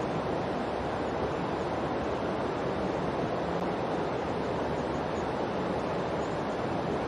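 A steady, even rushing noise with no swells or breaks, like a surf or wind sound bed. It is the masking background of a subliminal audio track.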